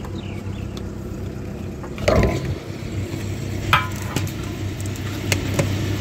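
Petrol dispenser's pump motor humming steadily while petrol runs from the nozzle into a motorcycle's fuel tank with a hissing flow. A knock about two seconds in, then a few sharp clicks.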